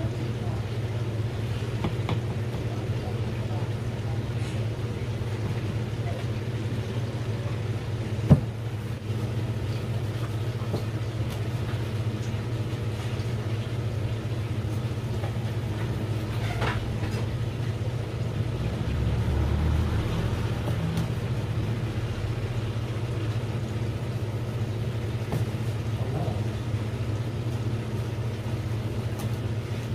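Steady low mechanical hum, like an idling engine or motor. Over it come a few light knocks of a knife on a plastic cutting board and one sharp knock about eight seconds in.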